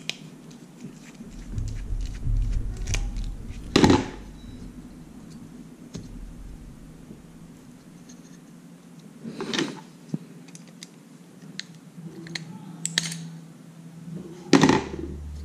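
A Wi-Fi smart plug being taken apart by hand: scraping and small scratching, with several sharp clicks and clatters of its plastic parts and screws. The loudest clicks come about four seconds in and near the end.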